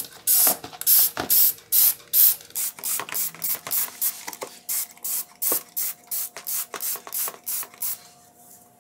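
Plastic trigger spray bottle squeezed again and again, a short hiss of spray with each stroke of the trigger, about two to three squirts a second onto plant stems in a plastic basin. The spraying stops shortly before the end.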